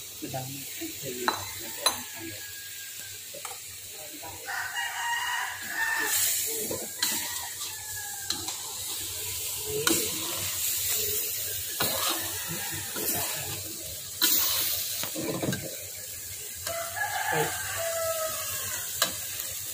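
A metal spatula scraping and knocking against a steel wok as chicken stomachs are stir-fried, with sizzling underneath. A rooster crows twice in the background, about five seconds in and again near the end.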